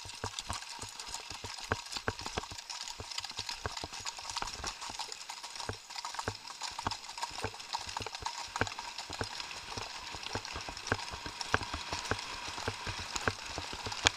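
Horses' hooves striking a gravel track, a rapid, unbroken run of hoofbeats from several horses on the move.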